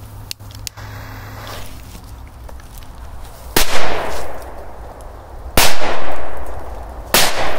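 Small flash firecrackers going off one after another: three sharp bangs, about two seconds apart, starting about halfway in. Each bang trails off over about half a second.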